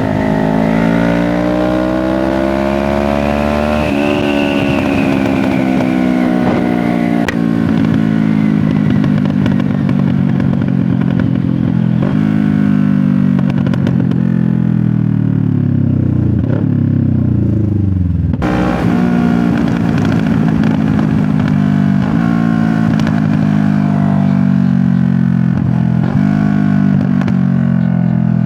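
Loud CFMoto 650NK parallel-twin engine through an SC-Project aftermarket exhaust while riding. Its pitch climbs for the first few seconds, eases off slowly, then settles into a steadier run with small rises and falls.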